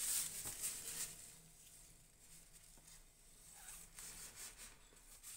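Paper towel wiping the rim of a ceramic serving platter: faint rubbing strokes in the first second, and again a few seconds in.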